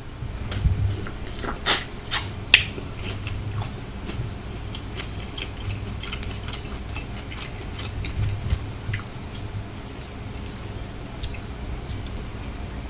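Close-miked chewing and biting of sautéed shrimp in sauce, a run of short wet clicks and smacks. The three loudest, sharp clicks come about two seconds in.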